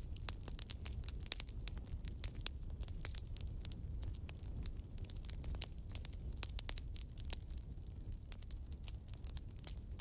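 Wood logs burning in a fireplace, crackling steadily with many quick, irregular snaps and pops over a low rumble.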